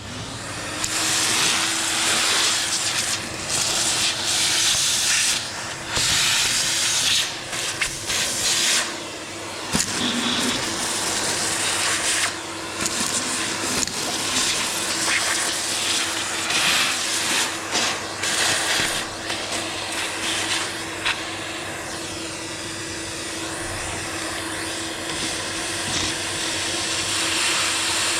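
An electric motor starts and runs steadily with a constant hum and a loud rushing of air, which swells and drops in bursts every second or two.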